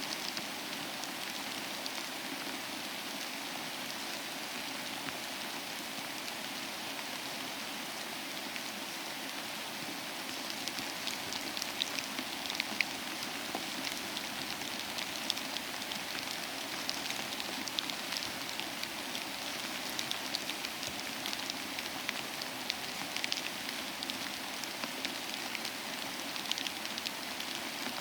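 Steady rain falling, an even hiss with drops pattering on a surface; from about ten seconds in, more distinct drop clicks stand out.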